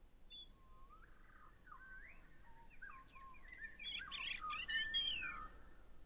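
A songbird singing: a run of clear whistled phrases that slide up and down, growing louder and turning into a rapid high twitter about four seconds in.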